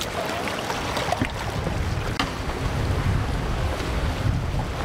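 Storm wind gusting on the microphone, a heavy rumble that rises and falls, with surf beneath it.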